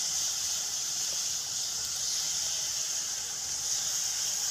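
Chopped onions and green chillies sizzling steadily in hot oil in a large frying pan, being lightly fried so they lose their raw taste.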